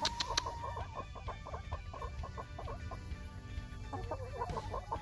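Several backyard hens clucking close up, a string of short, repeated clucks. A drawn-out note sounds at the start and busier clucking comes near the end.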